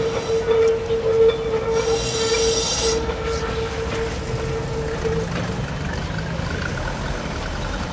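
Tram running on its rails: a steady mid-pitched tone that stops about five seconds in, a short shrill squeal around two seconds in, and a low whine rising near the end.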